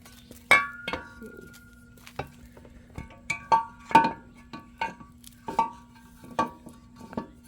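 Irregular metallic clinks and knocks, a dozen or so, some ringing briefly: a metal aftermarket oil tank being worked into place against the ATV's frame and loosened exhaust header.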